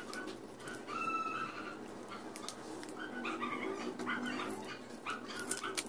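Small plastic gravy cup being handled and its lid peeled, with scattered clicks and crinkles. A thin whimpering voice comes and goes over it.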